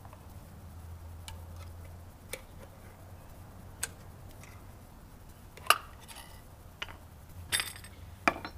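Scattered light clicks and clinks of metal transmission servo parts being handled while a snap ring is worked out of the servo cover, a few separate clicks with the sharpest about six seconds in, over a faint low hum.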